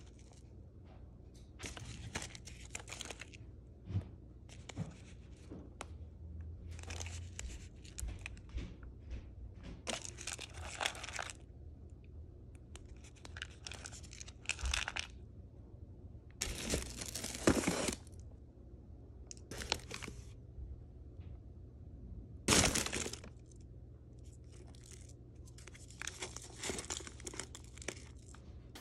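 Paper packaging in a delivery box rustling and crinkling as frozen paper smoothie cups are handled and lifted out, in irregular bursts with two louder crinkles past the middle.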